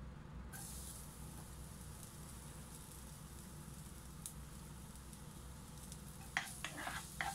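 Minced garlic hitting hot oil in a non-stick pan sets off a faint, steady sizzle about half a second in. Near the end a spatula stirring the garlic in the pan adds a few short scrapes and clicks.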